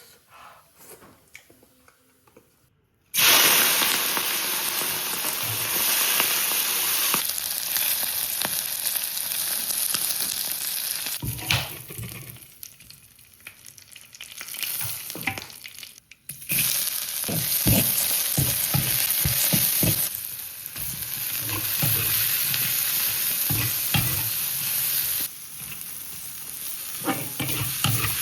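Food sizzling in hot oil in a pan, starting suddenly about three seconds in, with a spatula stirring and knocking against the pan. The sizzle dies down for a few seconds near the middle and then picks up again.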